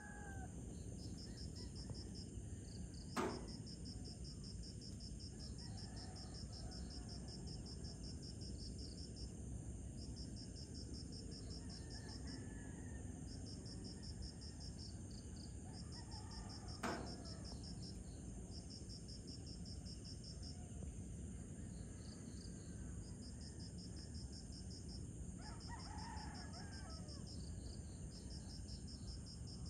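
Night insects chirping in high, pulsed trills that run for a few seconds, pause and start again, over a steady low background hum. Two sharp clicks, one about three seconds in and one a little past halfway.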